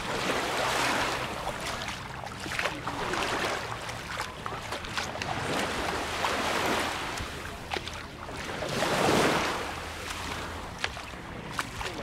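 Small sea waves washing up on a pebbly beach: a hissing wash that swells and fades every two to three seconds, loudest about nine seconds in, with scattered light clicks.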